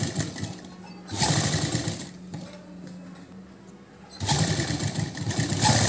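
Domestic sewing machine stitching in short runs, stopping and starting. There is a brief run at the start, another about a second in, and a longer run from about four seconds in, with quieter pauses between.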